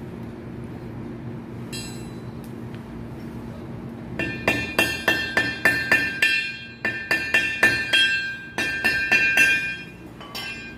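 Hammer tapping a metal part of a submersible pump motor: a quick run of about four ringing metal strikes a second, lasting roughly five seconds in the middle, with a single strike before and after it.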